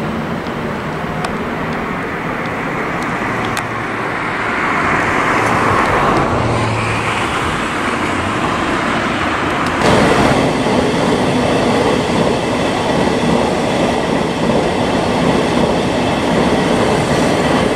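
Electric multiple-unit passenger trains running on the tracks below, a Thameslink Class 700 among them: a steady rumble of the trains on the rails that swells about four seconds in and jumps suddenly louder about ten seconds in, as a train runs close by.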